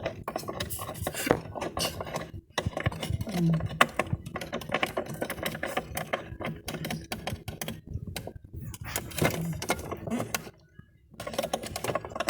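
Irregular small clicks, taps and clatter of plastic parts and small objects being handled, as a refrigerator's lamp cover and bulb are worked loose and things inside the fridge are moved. There is a brief pause about ten and a half seconds in.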